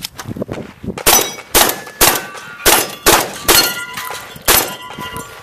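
Seven shotgun shots fired in quick succession, mostly about half a second apart, with a longer gap before the last. The hits set the steel plate targets ringing with a clang.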